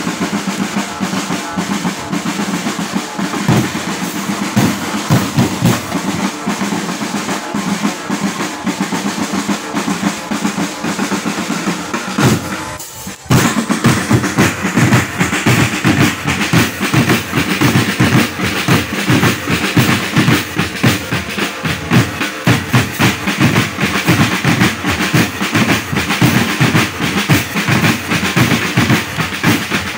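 Marching band drum line playing a march: snare drums rolling and bass drums beating a steady rhythm. The drumming breaks off briefly a little before halfway, then comes back louder and sharper.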